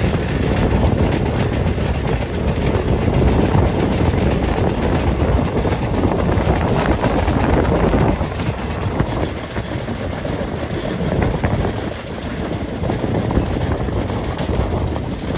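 Passenger train running along the track, heard from an open carriage doorway: a steady rumble of the coaches and wheels on the rails, a little quieter after about eight seconds.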